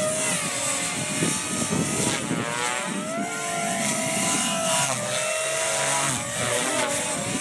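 Electric Gaui X3 RC helicopter flying, its motor and rotor head giving a high whine that wavers in pitch over a steady rushing noise from the spinning blades.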